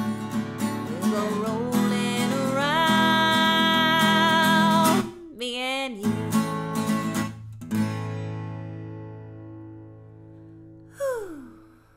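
Song on strummed acoustic guitar with a woman singing a melody line. It ends on a chord that rings out and slowly fades, with one short falling note near the end.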